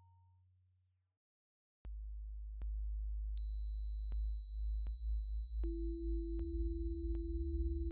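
Pure synthesised sine tones from the SonoGene synthesiser, which sonifies the genetic behaviour of melanoma cells. A low hum fades out in the first second. After a brief gap a deep drone starts suddenly, a steady high tone joins about three seconds in and a middle tone near six seconds, and the low drone begins to pulse. Faint clicks come about every three-quarters of a second.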